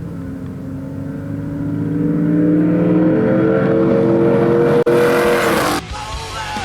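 V8 engine accelerating hard at full throttle, its pitch climbing steadily and the sound growing louder, with a brief drop-out about five seconds in. Near the end it cuts off abruptly into rock music.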